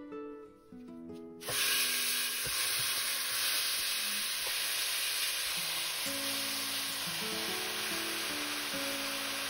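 Bone-in, skin-on chicken thighs sizzling in a hot pot, a steady frying hiss that starts suddenly about a second and a half in, over soft guitar music.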